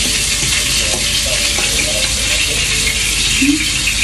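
Cutlets frying in a pan: a steady sizzling hiss.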